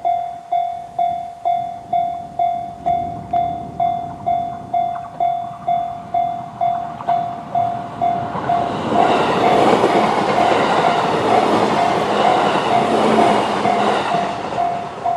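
Japanese railway crossing warning bell (the JR standard electronic bell) ringing steadily, about two strokes a second. About eight seconds in, a JR East E129 series electric train passes over the crossing, its wheels clattering over the rail joints. The train is loudest for about five seconds and then fades while the bell keeps ringing.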